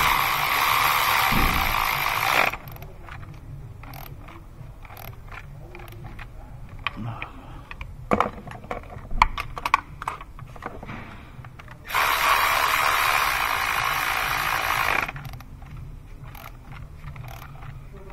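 Cordless electric ratchet with a spark plug socket running spark plugs down into the cylinder head: two steady whirring runs of about two and a half and three seconds, one at the start and one about twelve seconds in, with scattered clicks and knocks of tools and sockets between.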